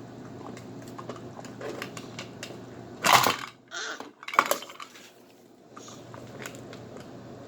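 Toy packaging being crinkled and torn open by hand: small rustles and crackles throughout, with a few louder crunches about three seconds in and again around four to four and a half seconds.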